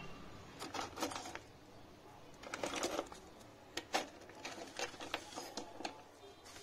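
Scattered light clicks and clinks of small metal tools and steel stencils being handled on a repair bench, in irregular ones and twos with a short cluster about three seconds in.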